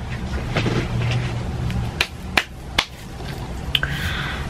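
A handful of sharp clicks and taps over low room noise, three of them in quick succession about two seconds in, with fainter ones near the end.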